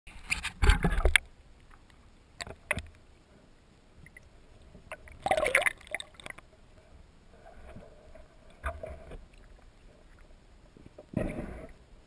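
Water splashing and gurgling around a camera held at the water's surface by a swimmer, in several short bursts, the loudest about a second in and again around five to six seconds.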